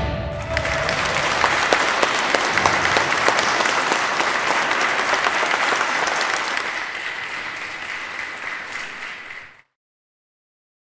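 Audience applauding, dense at first, then thinning out over the last few seconds before it cuts off abruptly.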